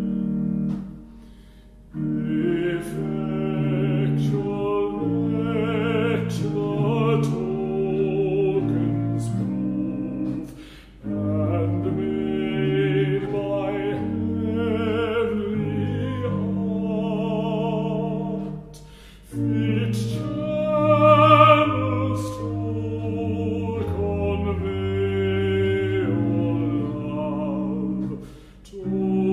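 Classical-style sung music: a voice with vibrato over sustained lower parts, in long phrases with brief pauses between them.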